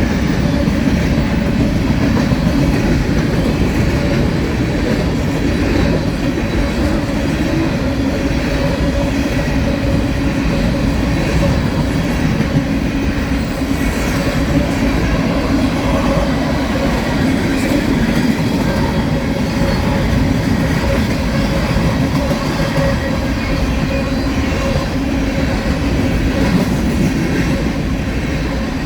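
Freight train cars rolling past close by: a loud, steady, unbroken rumble of steel wheels on the rails.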